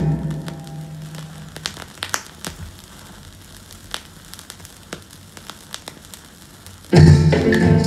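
Vinyl record surface noise in the blank groove between two tracks: faint crackle with scattered clicks, after the previous song's last note fades out in the first second or so. The next track's music starts suddenly near the end.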